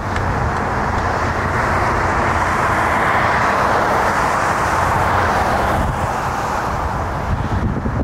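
A road vehicle passing: a rush of tyre and engine noise that swells to a peak about halfway through and fades near the end, with wind on the microphone underneath.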